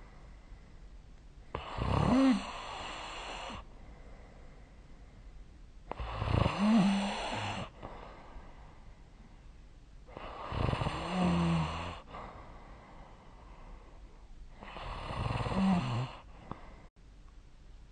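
A person snoring in sleep: four snores, each lasting about a second and a half, coming about every four and a half seconds with quiet breathing gaps between them.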